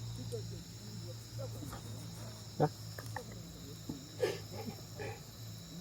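Crickets chirping steadily, with a few sharp campfire crackles and pops about two and a half, four and five seconds in.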